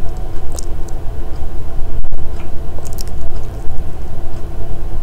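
Steady low rumble with a faint hum and a few small clicks; no speech.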